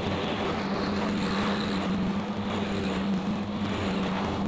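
John Deere 1025R compact tractor's three-cylinder diesel running steadily at working speed while it mows and collects leaves with a PTO-driven bagger; a constant drone.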